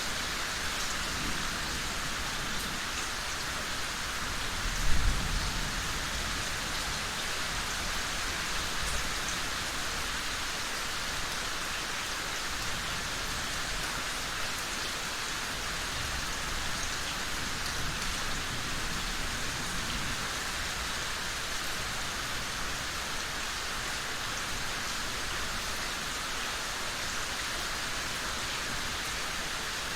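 Steady rain falling, an even hiss. About five seconds in, a brief low rumble, most likely distant thunder, rises above it.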